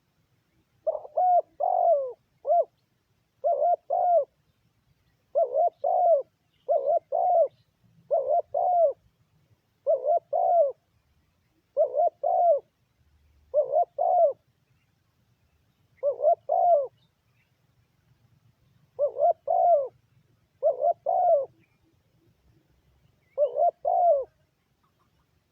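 Spotted dove cooing: short phrases of two or three soft notes, repeated again and again with pauses of a second or two between them.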